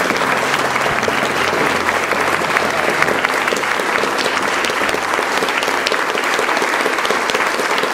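An audience of many people applauding, a dense, steady clapping that holds at the same level throughout.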